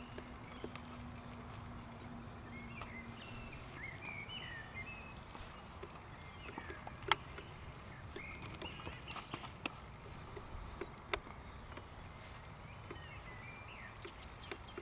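Quiet outdoor ambience with small birds chirping now and then and a few sharp clicks. A faint steady hum stops about three and a half seconds in.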